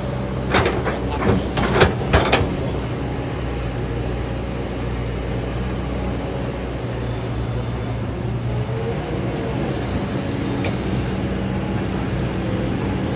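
Excavator's diesel engine running steadily, with a quick run of sharp clanks in the first couple of seconds and a faint rising whine about nine seconds in.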